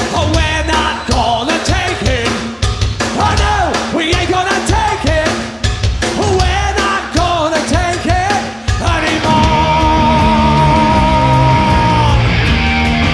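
Loud rock music with drums and a sung vocal line; about nine seconds in the melody gives way to a long held note over a denser, steadier band sound.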